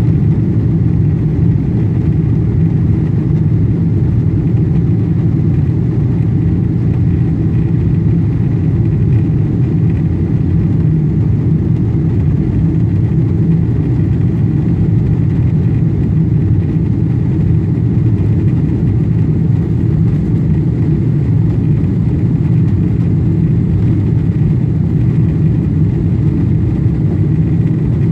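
Jet airliner cabin noise during the climb after takeoff: a steady, loud rumble of the engines and rushing air heard inside the cabin, with a faint steady high whine above it.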